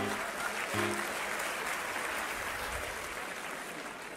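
Theatre audience applauding, dying away near the end. Two short chords on a harmonium sound over it, one at the start and one about a second in.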